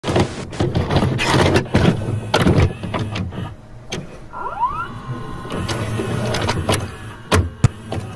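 VHS cassette being inserted into a VCR and loaded: a run of mechanical clicks and clunks, a motor whirring up with a short rising whine about halfway through, then two sharp clicks near the end.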